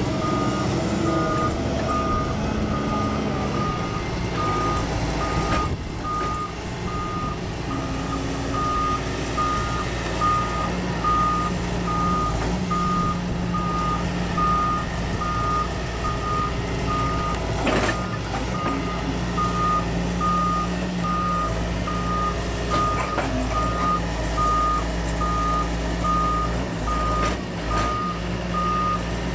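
A heavy work machine's reversing alarm beeping at an even, steady pace over the machine's engine running.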